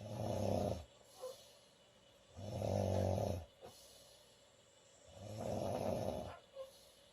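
A woman snoring loudly: three low, buzzing snores about two and a half seconds apart, each about a second long, each followed by a brief faint catch.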